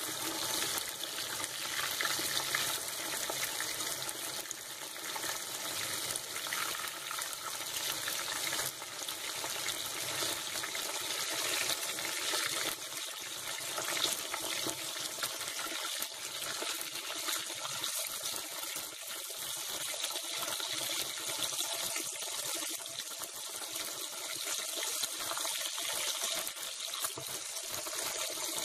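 Ragi-flour and masala-coated fish frying in hot oil in a pan: a steady sizzle with fine crackling.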